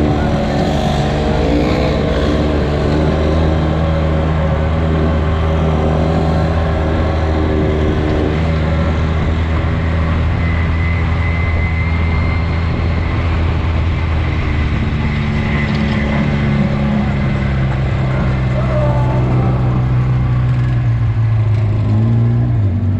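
Engine of an off-road side-by-side running steadily at a moderate speed, its pitch easing down slightly near the end.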